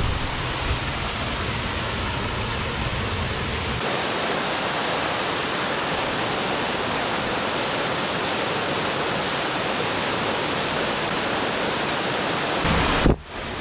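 Steady rush of river water pouring over a low wooden weir, a full waterfall hiss with no breaks. A low rumble lies under it for the first four seconds or so, then drops away.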